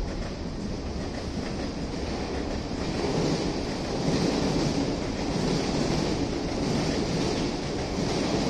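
A passing train: a steady rumble with a hiss over it, growing louder about three seconds in.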